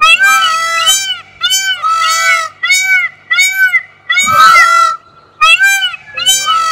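A large bird calling loudly in a rapid series of short honking notes, about a dozen, each rising and falling in pitch, with one longer call about four seconds in.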